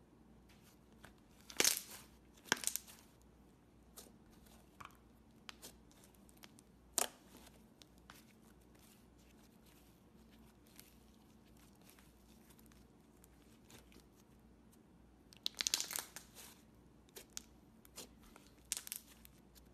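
Turquoise fluffy slime being stretched, folded and pressed by hand, giving sticky crackles and small pops. Louder clusters of crackling come about two seconds in and again near the end, with scattered single pops between.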